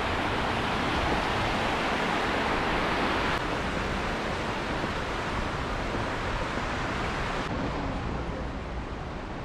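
Steady rush of a shallow, rocky river flowing over stones. It drops a little in level about three and a half seconds in and again near the end.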